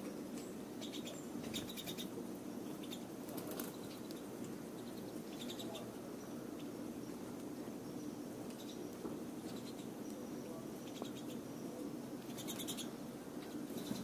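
Pine siskins feeding at close range on sunflower seeds. Short bursts of rapid, high-pitched ticking come several times in the first few seconds and once more near the end, over a faint steady background.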